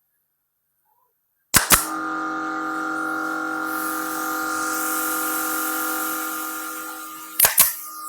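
Electric power tool motor running at a steady speed with a hiss, starting and stopping abruptly with a pair of sharp clicks each time.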